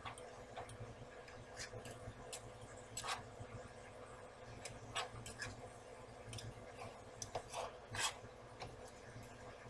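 Metal cooking utensils clicking and scraping against a nonstick frying pan as sausage is cut into small pieces in it: irregular clicks and scrapes, the loudest about five and eight seconds in.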